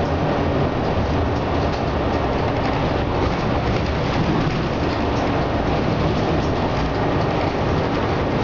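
Inside a moving city transit bus: steady engine rumble and road noise from the bus in motion.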